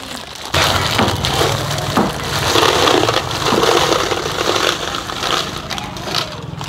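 Key rings being poured into a box, a continuous dense clatter of many small clicks that begins about half a second in.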